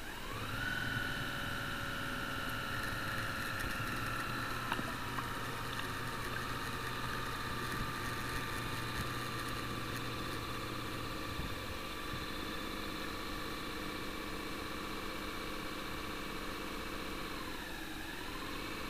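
Electric drive motor of an RC model Akula submarine, heard from inside the hull: a steady whine that spins up at the start, runs evenly, sags and picks up again near the end, then cuts off.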